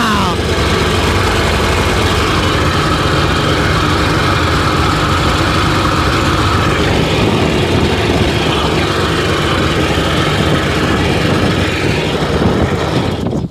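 Sea-Doo GTX DI's Rotax 951 direct-injection two-stroke twin running steadily, heard close up with the engine compartment open. It is being run to trace a water leak, which turns out to be at the exhaust.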